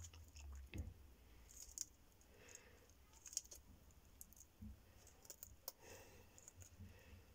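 Faint, irregular crisp clicks of a Horsfield tortoise biting and tearing dandelion leaves, with a few soft rustles of the leaf.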